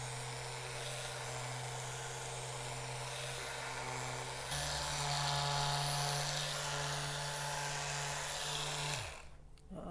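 Handheld electric massager buzzing steadily on the patient's back. About halfway through, its hum steps up in pitch and gets louder. It stops shortly before the end.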